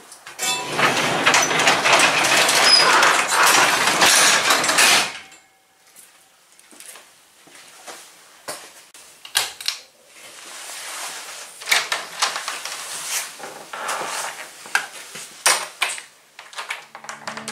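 Sectional garage door pulled down by hand, rumbling and rattling along its tracks for about four and a half seconds. This is followed by lighter clattering and scattered clicks.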